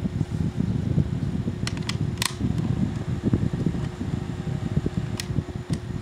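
O2 Cool 5-inch battery-powered box fan running: a steady low motor hum under a low, flickering rush of air. A few sharp clicks come about two seconds in and again near the end.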